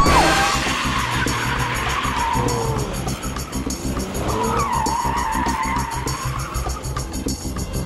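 Sports-car tyres squealing as the cars drift and slide, the squeal wavering up and down in pitch, over music with a quick steady beat.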